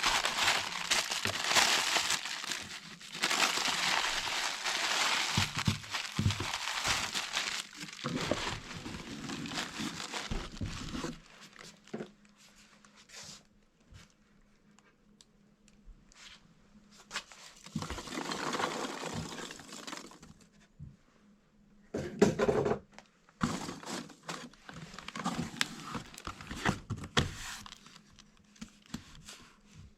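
Plastic bubble wrap crinkling and rustling as it is wrapped around a toy train car. The handling is continuous for about the first ten seconds, then comes in shorter bouts with scattered crackles toward the end.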